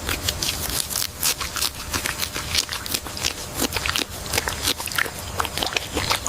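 Rapid, irregular crackling and clicking over a low rumble.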